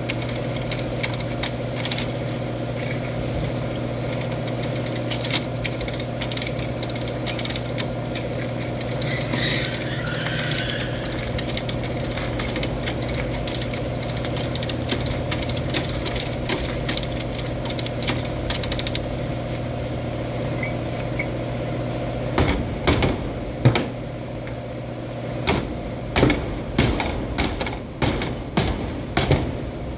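Ratcheting clicks of a hand chain puller being worked to pull out a car's crumpled rear body panel, over a steady engine-like drone. The drone stops about two-thirds of the way through, and sharp knocks follow, several a second.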